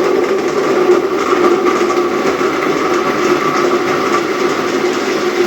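Electric kitchen blender running steadily at constant speed, blending ginger, garlic, cayenne pepper, lime, fennel seed and honey in water.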